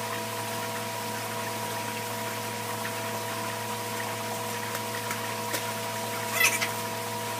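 Steady hum of aquarium pumps and filtration running, with the sound of moving water. About six and a half seconds in there is a brief crackle as the floating plastic fish bags are handled.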